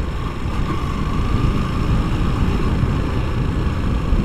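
Honda XRE 190's single-cylinder four-stroke engine running at a steady cruising speed on a dirt road, under a steady rumble of wind and tyre noise.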